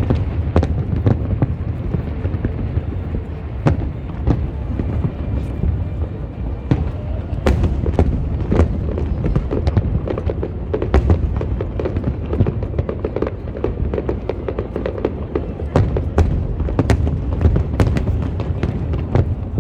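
Fireworks display: a rapid, irregular run of bangs and crackles over a continuous low rumble.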